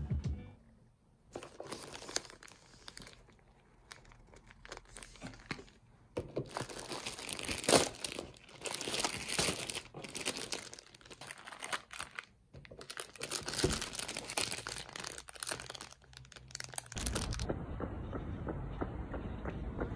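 Plastic packaging crinkling in irregular bursts as a parcel is unboxed. About three seconds before the end it gives way to a steady low rumble.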